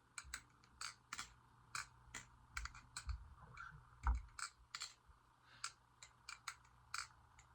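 Balisong (butterfly knife), a clone of the Squid Industries Krake Raken, being flipped: a string of irregular sharp clicks and clacks as the handles swing round and strike, a few a second, with a couple of duller knocks about three and four seconds in.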